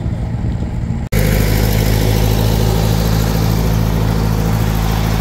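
Tractor engine running steadily at a low, even speed. About a second in, the sound breaks off for an instant and comes back louder and closer.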